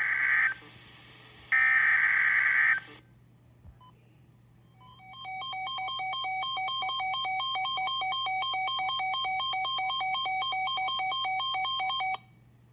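EAS alert tones on a NOAA Weather Radio broadcast, signalling a Special Marine Warning. First comes the end of one screeching SAME data burst and then a second full burst about a second and a half in. After a short pause, an electronic alert tone that warbles rapidly between two pitches fades in, holds for about seven seconds and cuts off abruptly.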